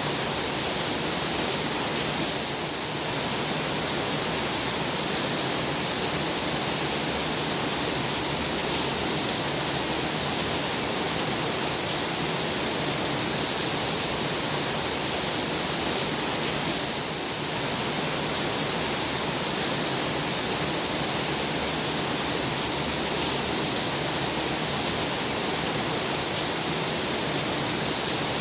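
Heavy rain pouring steadily, a dense even hiss that dips slightly twice.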